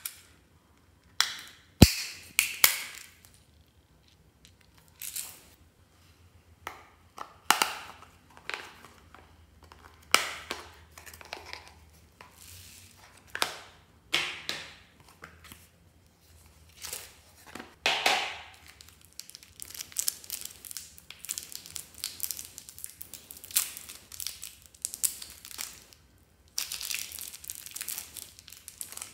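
Plastic wrappers crinkling and tearing as small items are unwrapped by hand, in separate bursts with short pauses between, busiest near the end. A sharp click comes about two seconds in.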